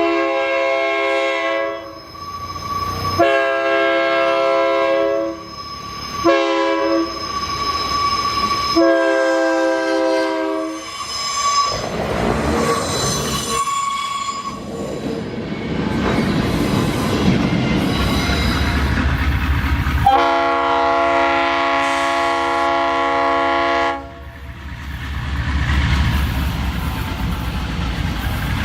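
Locomotive air horn sounding a multi-note chord in four blasts, long, long, short, long, the grade-crossing warning pattern. Then comes the rumble of a running train and a second, lower horn chord held for about four seconds near the end.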